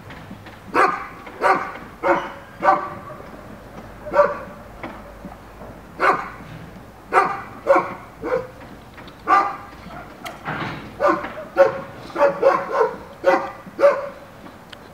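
A dog barking repeatedly, about twenty single barks, coming faster and closer together in the last few seconds.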